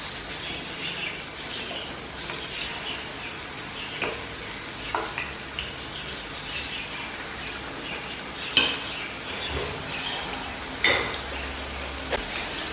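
Battered chicken pieces deep-frying in hot oil in a pan: a steady sizzle with crackling as the oil bubbles around them. A few sharp clicks cut through, the loudest about eight and a half and eleven seconds in.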